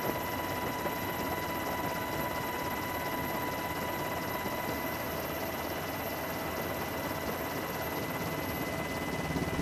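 Steady engine drone with a constant high whine, unchanging throughout.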